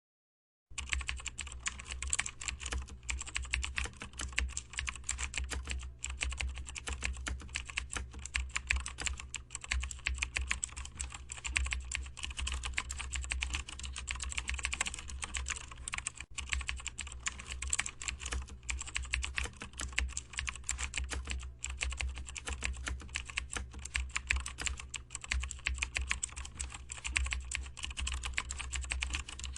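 Computer keyboard typing steadily in quick, dense keystrokes, starting just under a second in.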